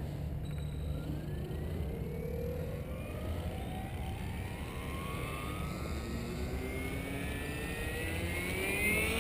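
Synergy E7se electric RC helicopter spooling up on the ground: its brushless motor and drivetrain give a whine that climbs steadily in pitch as the rotor head speed builds.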